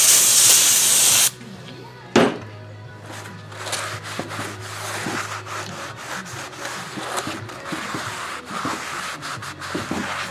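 Aerosol brake cleaner spraying onto a new brake rotor in a loud, steady hiss that cuts off about a second in. A single knock follows, then a shop towel rubbing and wiping the rotor's metal surfaces.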